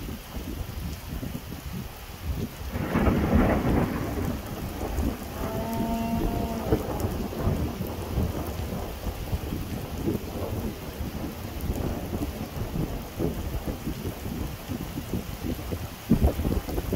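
Thunderstorm: steady downpour of rain with thunder rumbling, swelling loudest about three seconds in.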